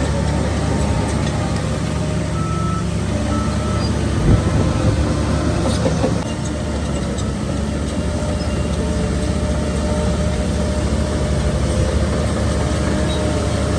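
Heavy diesel engines of a bulldozer and dump trucks running steadily under load, with a reversing alarm beeping a few times in the first half and a sharp knock about four seconds in.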